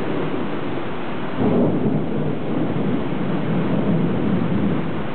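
Thunder rolling over a steady hiss of rain, the rumble swelling up about a second and a half in and lasting a few seconds.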